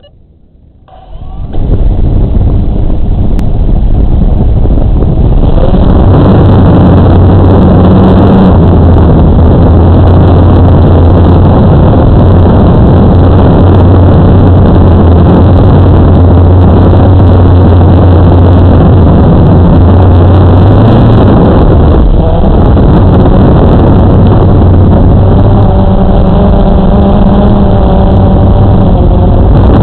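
A camera drone's electric motors and propellers spin up about a second and a half in and run loud and steady as it lifts off and flies, heard from the drone's own onboard camera. The pitch changes briefly about two-thirds of the way through.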